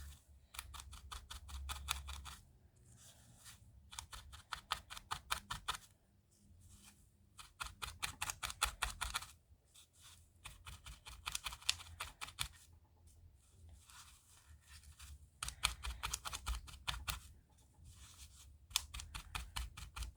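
Felting needle stabbing repeatedly into wool, a quick run of crisp pokes in bursts of a second or two with short pauses between.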